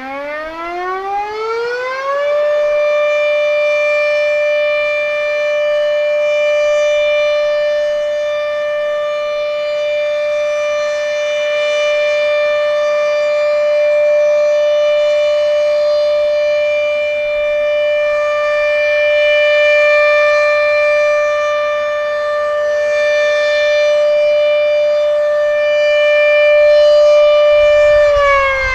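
Sentry 40V1T single-tone outdoor warning siren sounding a steady alert. It winds up to full pitch over the first two seconds, holds one steady tone, and begins winding down at the very end.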